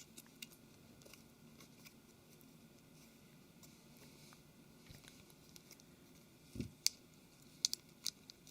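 Faint clicks and taps of small plastic and metal smartphone parts being handled and pressed into place, with a soft thump about six and a half seconds in and a cluster of sharper clicks near the end.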